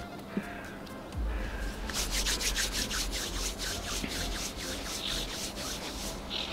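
Spinning reel on a feeder rod being cranked, a fast even run of rubbing strokes starting about two seconds in, over a low rumble of handling.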